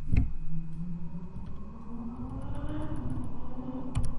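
A few computer keyboard keystrokes, one sharp click just after the start and another near the end, over a steady low rumble whose pitch rises and then falls through the middle.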